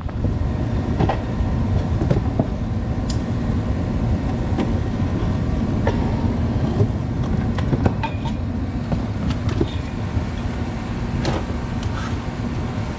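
A motor vehicle running: a steady low rumble with scattered rattles and clicks.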